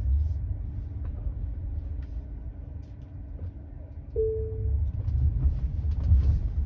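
Low road rumble inside the cabin of a Tesla Model 3 on the move, an electric car with no engine note. A short single steady tone sounds about four seconds in.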